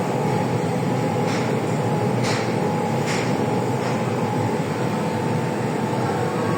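Steady machinery hum with a thin constant tone from a CNC laser cutting machine running. Three short hisses come about a second apart early in the sound.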